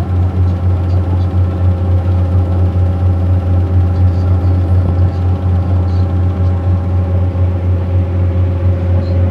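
A river cruise boat's engine running steadily while the boat is underway: a loud, even low drone with a steady hum above it.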